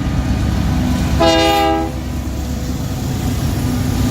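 Union Pacific freight train's locomotive rumbling past, with one short horn blast about a second in.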